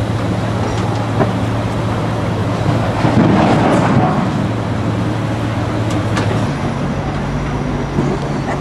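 Heavy diesel engine running steadily, its pitch stepping up about six and a half seconds in, with a louder, rougher rush about three to four seconds in.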